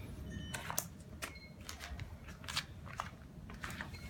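Faint handling noise: scattered light clicks and crinkles, irregular, a few each second.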